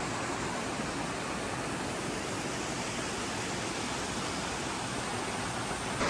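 Steady rush of a mountain stream cascading over boulders.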